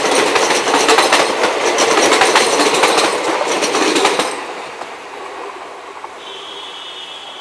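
Indian Railways passenger coaches rolling past close by at speed, their wheels clattering rhythmically over the rail joints. About four seconds in the last coach goes by and the sound drops sharply to a fading rumble as the train recedes.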